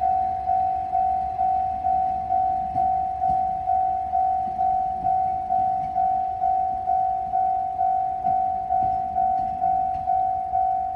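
Japanese railway level crossing warning bell ringing: a single pitched ding repeated about twice a second, each strike fading before the next.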